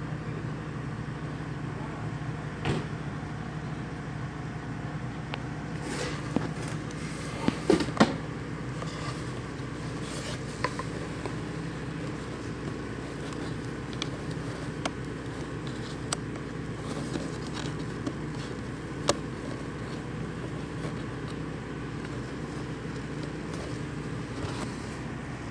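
Scattered sharp clicks and knocks of a plastic welding helmet and its packaging being handled, with a cluster of knocks about eight seconds in, over a steady low hum.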